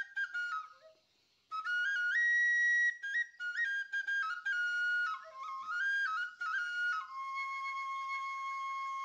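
Music: a solo flute melody moving in steps between notes, with a short pause about a second in, ending on a long held note.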